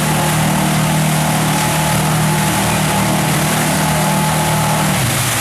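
SUV engine held at steady high revs as it churns through a deep mud pit, its spinning tyres throwing mud; the engine note drops near the end.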